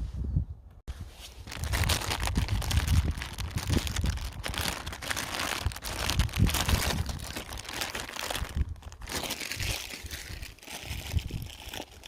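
Wind buffeting the microphone in irregular gusts, a deep rumble with crackly rustling on top, easing briefly about a second in and again near the end.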